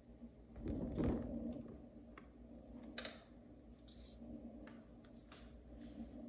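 Steady low hum of reef-tank equipment with scattered light clicks and handling rustles, the loudest about a second in, as the target-feeding tube is worked in the tank.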